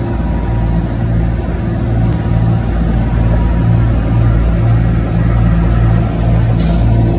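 Boat engine running steadily while underway, a low hum that throbs at a regular rate.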